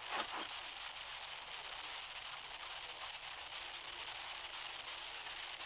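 Steady hiss of a livestream's audio feed with no voice getting through, a sign that the stream's sound has dropped out. A single sharp click comes just after the start, and a faint low hum joins about halfway through.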